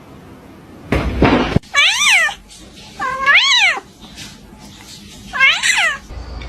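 Domestic cat meowing three times, each meow rising and then falling in pitch, the second one longest. A short noisy burst comes just before the first meow.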